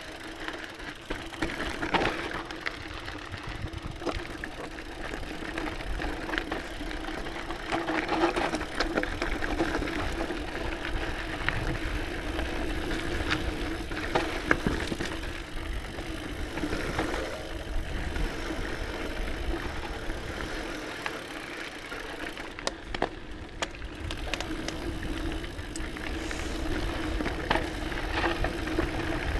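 Scott Genius mountain bike ridden down a dirt singletrack: tyres rumbling over the dirt and roots, with the chain and frame rattling and clicking over bumps and a steady hum underneath. It is briefly quieter about three-quarters of the way through.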